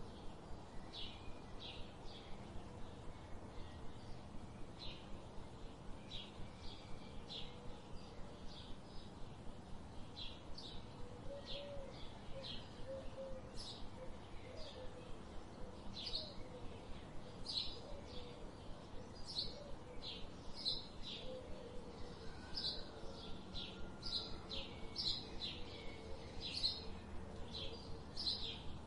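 Small birds chirping: many short, high notes repeated over and over, coming thicker in the second half, with fainter lower warbling notes in the middle and a steady outdoor background hiss.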